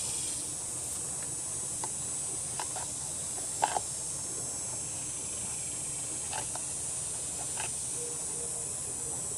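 A few faint, light clicks and taps, the loudest about three and a half seconds in, over a steady high hiss. This is the Kohler mower engine being turned over by hand with its cylinder head off, and no knock is heard from the piston at top dead center.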